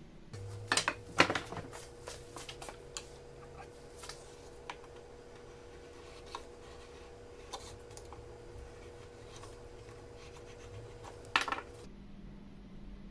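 Wooden strips and small hand tools handled on a wooden workbench: a few sharp clicks and knocks about a second in, scattered light taps and rubs, and another short cluster of knocks near the end, over a faint steady hum.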